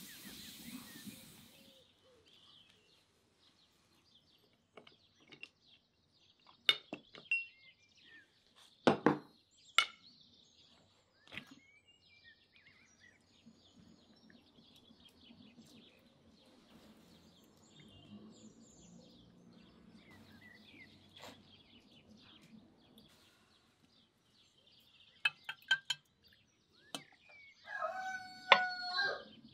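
Quiet rural ambience with faint birds chirping, a few sharp clinks and knocks scattered through it, and a rooster crowing once near the end. A wood fire's crackle fades out in the first second or two.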